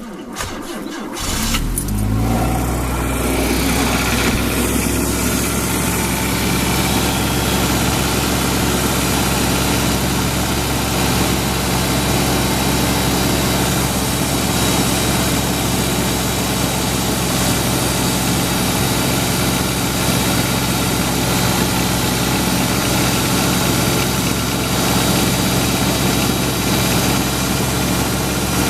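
Suzuki Escudo engine cold-started in minus-20 weather: the starter cranks briefly, the engine catches about a second and a half in and settles into a steady idle. The owner is listening to it for a knock from the cylinder head.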